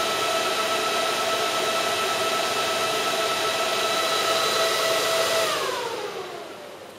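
Chenbro RM91250 9U storage server's cooling fans running at full speed with a steady whine, then spinning down after the server is switched off, the pitch sliding down and the noise fading out about five and a half seconds in.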